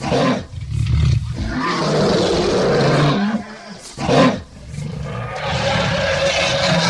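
Male lion roaring in a bout of deep, drawn-out calls, with a short, loudest call about four seconds in.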